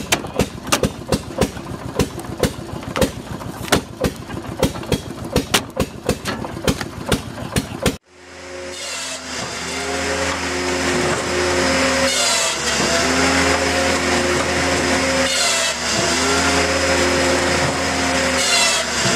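Old flywheel stationary engine running, a fast, uneven series of sharp exhaust beats as it drives a belt-driven circular saw. About eight seconds in it cuts off abruptly and gives way to a steady, denser mechanical sound with held tones and a whooshing swell every three seconds or so.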